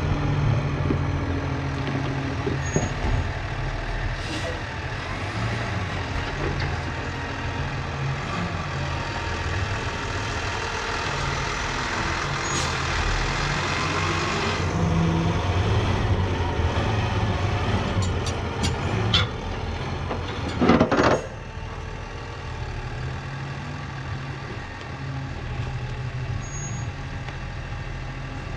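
A heavy vehicle's engine runs steadily with a low drone through a bale-squeeze hay-loading job. A few sharp clicks come about two-thirds of the way in, followed straight away by one short, loud hiss of air.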